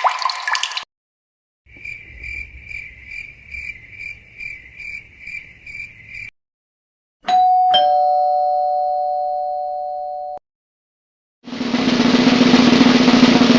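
Three separate sound effects with short silences between them. First a high electronic tone pulsing about twice a second for roughly four and a half seconds. Then a two-note ding-dong doorbell chime, the second note lower, ringing out for about three seconds, and finally a loud hissing noise with a low hum that swells up near the end.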